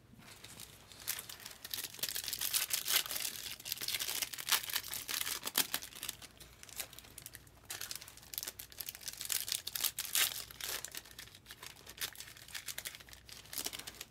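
Trading-card packaging (plastic wrap and foil pack wrappers) crinkling and tearing as it is handled by hand, in irregular bursts, loudest a few seconds in and again about ten seconds in.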